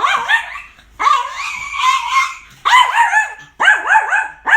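Small Maltipoo dog barking frantically in high-pitched yaps that come in bursts, with a longer drawn-out, whining stretch of bark early on. This is his alarmed, agitated barking at the vacuum cleaner.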